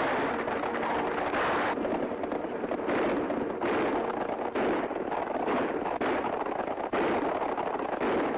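Old film soundtrack: a run of gunshots, roughly one or two a second, over continuous dense noise.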